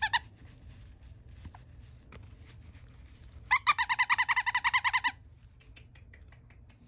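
Squeaker inside a plush ice-cream-cone dog toy being squeezed by hand: one short squeak at the start, then about a second and a half later a fast run of squeaks, roughly a dozen a second.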